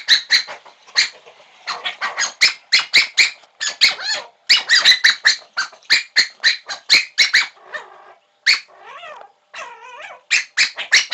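Black cocker spaniel demand-barking for a beer can: sharp, high-pitched barks in quick volleys, several a second, with a short lull of softer sounds near the end.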